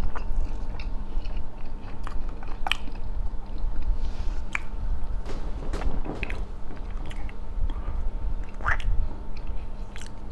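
A man chewing a mouthful of roasted chicken close to a clip-on microphone, with scattered wet mouth clicks and smacks.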